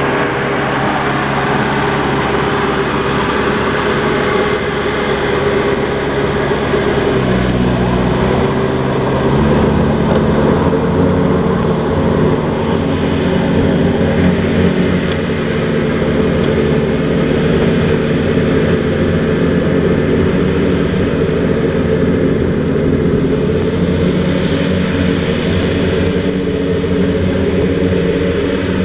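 Jacobsen HR9016 wide-area rotary mower's diesel engine running steadily under load as it mows. The pitch of its engine note shifts about eight seconds in.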